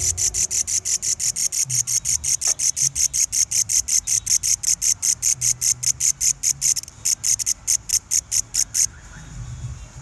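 Katydid (bush cricket) stridulating: a fast, even train of high, buzzy pulses, about five to six a second. The train falters about seven seconds in, goes on more sparsely and stops suddenly about two seconds before the end.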